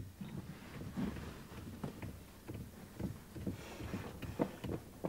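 Fingers drumming on a car door's window ledge: irregular light taps, a few a second.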